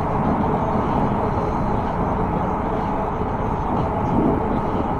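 Steady rush of wind and rolling noise on the microphone of an e-bike moving along a paved path, with road traffic mixed in.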